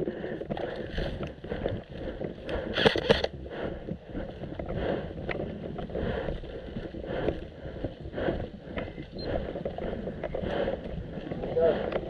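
Footsteps and rustling gear of a person walking on grass and paving, with wind buffeting the microphone. A brief, louder rattle comes about three seconds in.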